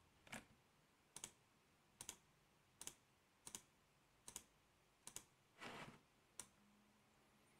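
Faint computer mouse clicks at a steady pace, a little more than one a second, nine in all.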